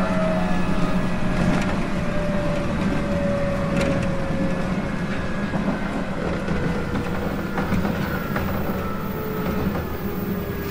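Running sound inside a JR East 719 series electric multiple unit: a steady rumble of wheels on rail, with a faint motor and gear whine that falls slowly in pitch as the train slows, and a few light knocks.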